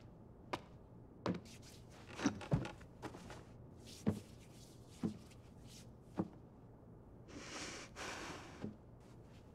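Quiet, scattered soft knocks and taps, roughly one a second at uneven spacing, with a brief rustle a little after halfway through.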